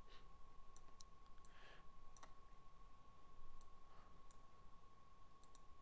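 Faint, irregular clicks of a computer mouse as nodes are selected and dragged, over a faint steady high tone.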